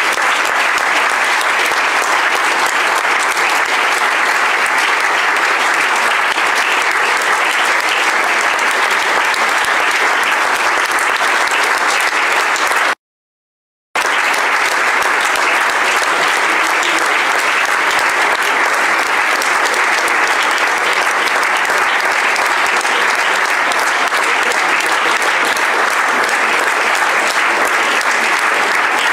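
Audience applauding: dense, steady clapping that cuts out completely for about a second partway through.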